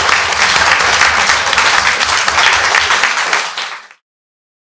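Audience applauding, dense and steady, then fading out quickly about three and a half seconds in.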